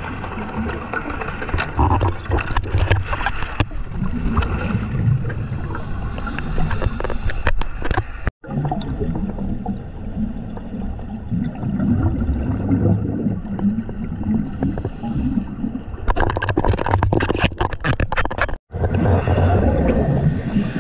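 Underwater sound on a diver's camera: scuba regulator bubbles gurgling and crackling over a low rumble. The sound cuts out briefly twice.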